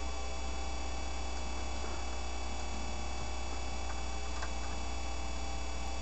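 A steady low hum with a few faint, scattered ticks.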